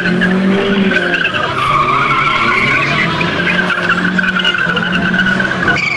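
Car tyres squealing as a car is driven hard through tight turns, the squeal wavering in pitch over the engine running underneath. The sound changes abruptly just before the end.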